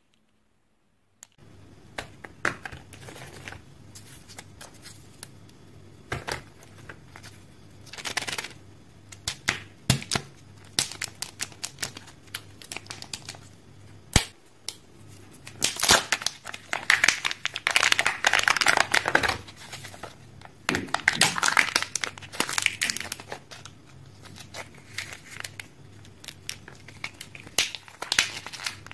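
Kinder Joy egg wrappers crinkling and tearing as fingers peel them open. There are scattered sharp clicks and taps, and long spells of loud crinkling in the second half. It starts after about a second of silence.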